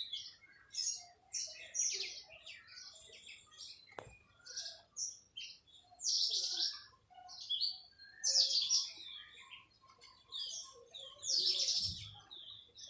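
Small birds chirping and twittering in quick high notes, with denser bursts every two to three seconds and a single sharp click about four seconds in.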